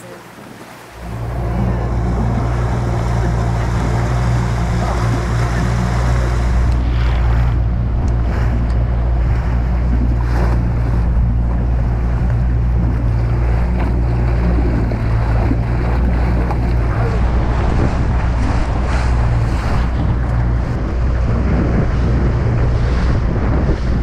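A small open motorboat under way: its engine hums steadily under the rush of water along the hull, with wind buffeting the microphone. The sound cuts in loudly about a second in.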